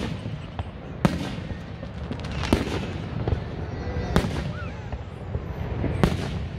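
Aerial fireworks shells bursting overhead: sharp bangs every one to two seconds over a steady low rumble.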